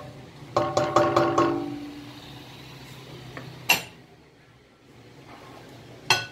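A spoon knocking against a metal cooking pot about five times in quick succession, the pot ringing briefly after. Two single sharp clicks come later, over a steady low hum.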